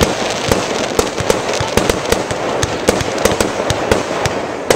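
Aerial fireworks going off: an irregular run of sharp pops and bangs, several a second, over a steady hiss.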